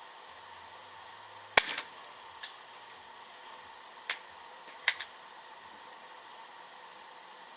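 A Gamo P900 .177 break-barrel air pistol firing once with a sharp crack about one and a half seconds in, followed by a couple of lighter clicks. Single sharp clicks come at about four and five seconds.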